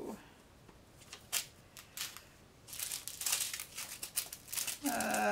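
Small plastic bags of square diamond-painting drills crinkling as they are handled, after a few light ticks; the crinkling lasts about a second and a half.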